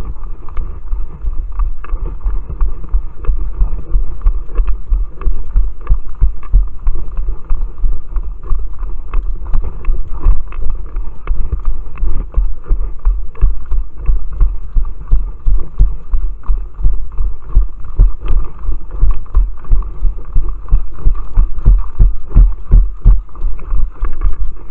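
Low rumbling buffeting and frequent irregular thumps on the microphone of a handheld camera being carried on the move. Camera handling and wind noise.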